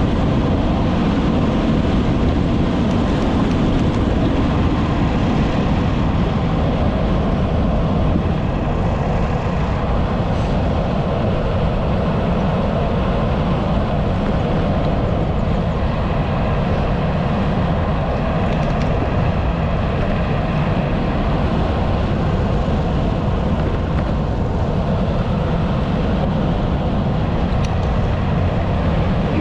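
Steady wind rushing over the camera microphone of a bicycle rolling along an asphalt road, a dense, deep rumble with no breaks.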